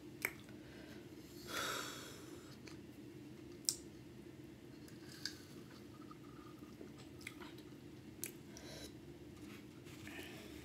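Faint mouth sounds of eating and drinking: a handful of sharp lip smacks and clicks and a sip through a drinking straw, with a short breathy puff about two seconds in, over a steady low hum.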